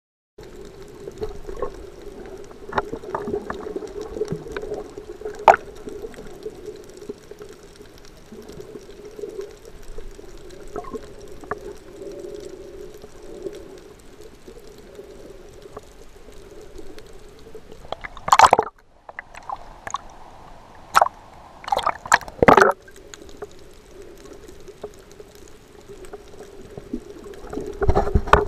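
Underwater sound heard through an action camera's waterproof housing: a muffled steady hum with scattered clicks and crackles. A few louder bursts of water noise come past the middle, and rumbling handling noise near the end.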